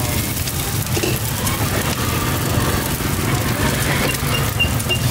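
Fried noodles and eggs sizzling on a large flat wok, over a steady low hum and faint voices. A short run of faint high beeps comes near the end.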